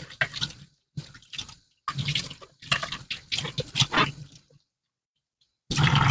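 Tap water running and splashing as a cat water fountain's tank and tray are washed by hand in a sink, heard in several short stretches broken by gaps of silence.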